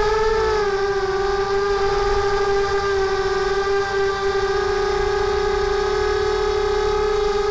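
Mini quadcopter's Sunnysky brushless motors and propellers whining at a steady high pitch, heard from the camera on the quad itself; the pitch wobbles slightly in the first second, then holds level.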